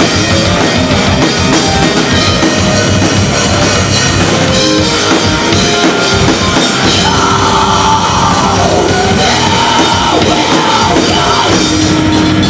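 Heavy metal band playing live at full volume: electric guitars, bass guitar and a Yamaha drum kit with keyboard, dense and continuous.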